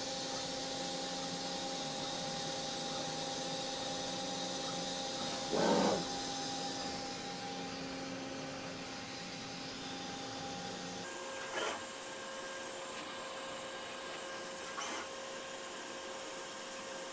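Milltronics TRM3016 CNC mill running a drilling program with a half-inch drill: a steady machine whir with several steady hum tones. There is a short louder noise about six seconds in, and the hum changes pitch about eleven seconds in, followed by a few fainter short sounds.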